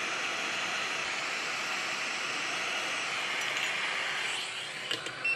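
Hot air rework station blowing a steady hiss at high airflow onto a phone board's metal RF shield to melt its solder. The airflow stops about four seconds in, followed by a couple of light metallic clicks as the loosened shield is handled.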